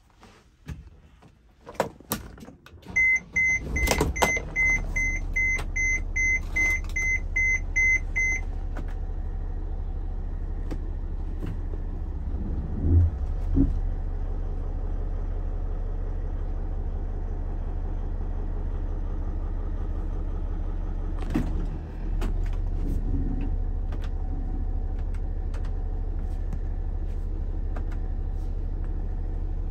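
Mercedes-Benz Sprinter's 3.0 L V6 turbo diesel starting about four seconds in and then idling steadily, heard from inside the cab. A dashboard warning chime beeps rapidly for about five seconds as it starts. A few clicks come before the start and a couple of short clunks come later.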